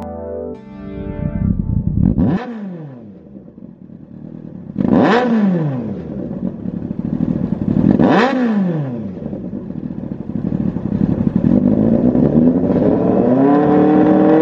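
Yamaha FZS1000's inline-four engine through a Lextek XP8C aftermarket slip-on silencer, revved on the stand: three quick throttle blips that rise and fall back to idle, then a slow climb in revs that keeps rising near the end.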